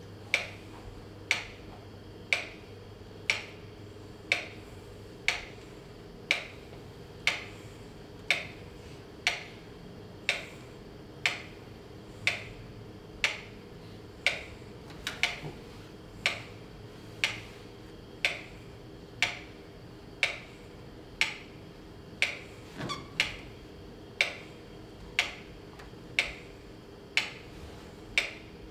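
A steady tick, very even at about one a second, over a faint low hum.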